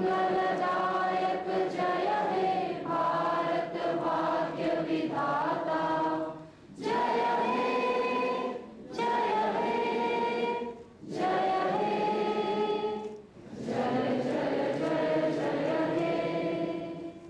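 A standing gathering singing together in unison, led by a woman's voice through a microphone. It is slow, with long held notes. In the second half it breaks into phrases of about two seconds with short pauses between, and it ends near the end.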